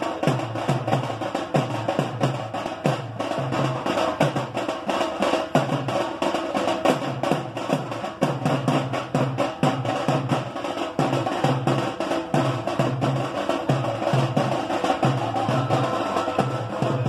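Music driven by fast, steady drumming, with sharp, clicking strokes over a repeating low beat.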